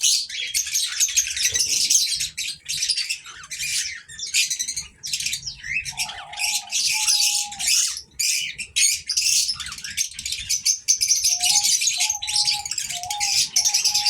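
Young cockatiels chirping and chattering in dense, continuous high calls, with a few short, steady, lower whistled notes about six seconds in and again near the end.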